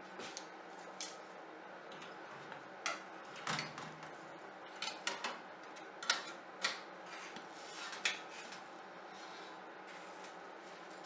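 Metal kitchen tongs clinking and scraping against a toaster oven's rack and metal baking tray as a baked naan is pulled out. The sharp clicks come irregularly, a dozen or so, over a faint steady hum.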